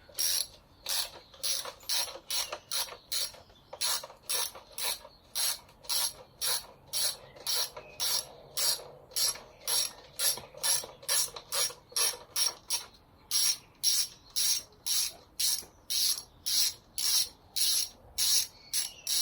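Socket ratchet clicking steadily as it is swung back and forth, about two to three clicks a second with one brief pause, unscrewing a bolt that has just broken free.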